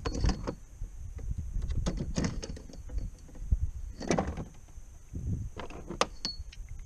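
A small redfish thumping and flopping on a plastic kayak deck as it is swung aboard on the lure, with several clusters of knocks and rattles.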